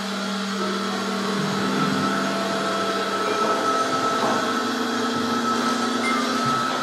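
Experimental electronic score: a loud, steady, dense noise drone with several held tones layered through it, swelling a little after the start.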